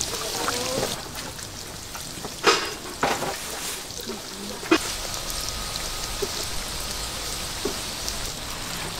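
Food sizzling as it fries in oil, a steady hiss, with a few sharp knocks on the cooking surface about two and a half, three and nearly five seconds in.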